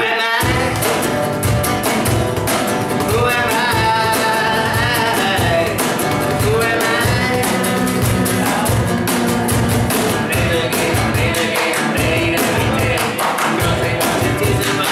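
Acoustic band playing an alternative rock song: strummed acoustic guitar, violin and a cajón beat, with a man singing. The full band comes in loudly at the start.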